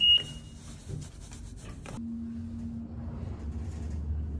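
A single short high-pitched ding at the start, ringing out over about half a second, followed by a low steady hum.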